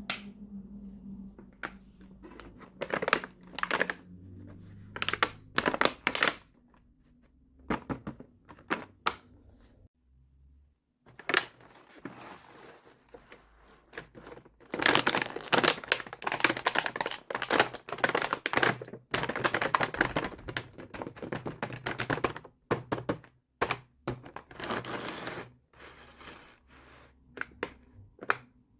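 Hands unboxing miniature plastic toys: packaging crinkling and tearing, with clicks and light knocks of small plastic pieces. The sounds come in irregular bursts, busiest through the middle.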